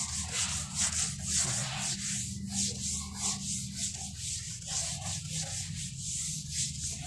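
Whiteboard duster rubbed back and forth across a whiteboard, a quick run of repeated scrubbing strokes.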